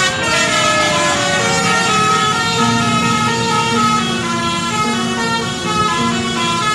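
Bus telolet horn of the 'basuri' kind playing a tune: a series of held musical notes that step from one pitch to the next, with a few sliding notes in the first couple of seconds.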